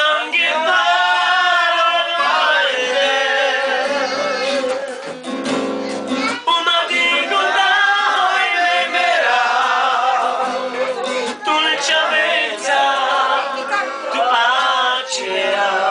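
A man singing to his own acoustic guitar, with other men's and women's voices singing along.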